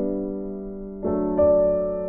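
Background piano music: sustained chords, with a new chord struck at the start and another about a second in, and a higher note added just after.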